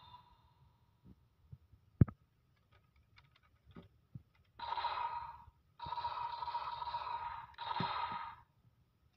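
Plastic lever of a DX Two Sidriver toy with the Bat Vistamp loaded clicks sharply about two seconds in, followed by a few lighter clicks. Then the toy's small speaker plays its electronic sound effects in three bursts over the second half.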